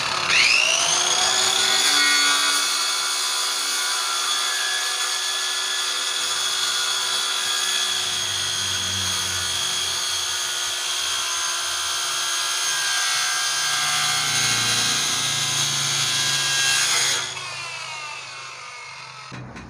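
Cheap 1050-watt Makita-lookalike circular saw spinning up with a rising whine, then running at full speed as it cuts through a wooden board. Near the end it is switched off and winds down with a falling whine.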